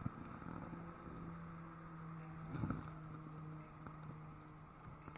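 Faint, steady hum of a boat motor on the river, one held low tone with a few overtones. A brief low thump a little past the middle.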